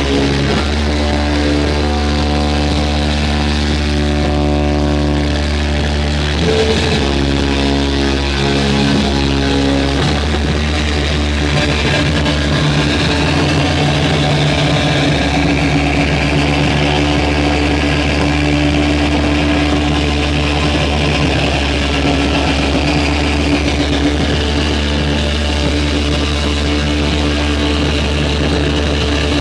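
Electric guitar played loud through effects pedals as a sustained drone of held notes. The pitches shift about seven and ten seconds in, then thicken into a dense, noisy wash.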